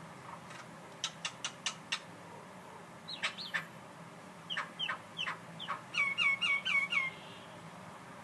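A bird calling in a varied series of short notes: five quick clicking notes about a second in, two sweeping notes around three seconds, several sharp notes after that, then a run of five quick repeated clear notes near the end.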